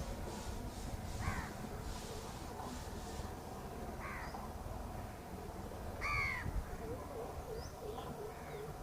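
Crows cawing: single harsh caws spaced a few seconds apart, the loudest about six seconds in and a faint one near the end.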